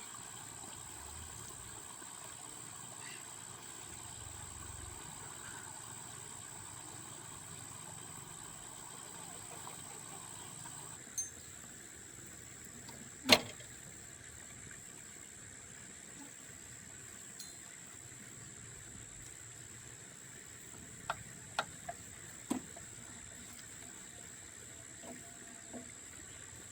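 Quiet steady background hiss with a faint high-pitched whine, broken by a few sharp clicks or taps: one loud click about halfway through and a quick cluster of smaller ones later.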